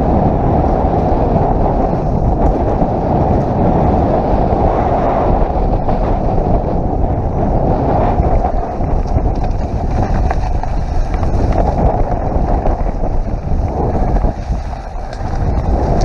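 Heavy wind buffeting on a bike-mounted camera's microphone, mixed with mountain bike tyres rumbling over a dirt trail on a fast downhill descent, easing briefly near the end.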